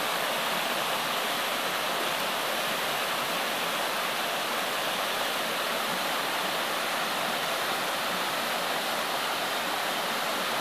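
Mountain stream cascading over rocks and boulders in small falls: a steady, even rush of falling water.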